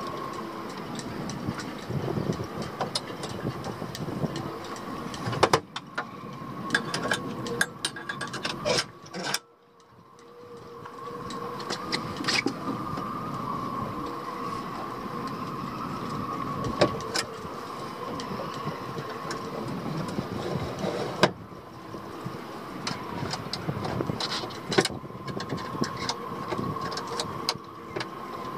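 Repeated clicks and knocks as an electric outboard's shaft, mounting bracket and round metal head cover are handled and lowered into the motor well, over a steady mechanical hum.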